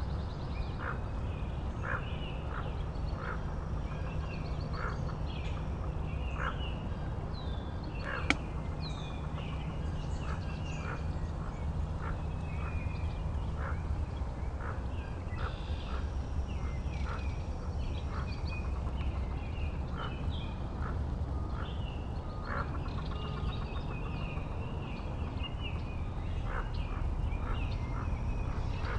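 Hooded merganser hen and ducklings calling on the water: short calls about once a second, with higher peeps among them, over a low rumble. One sharp click about eight seconds in.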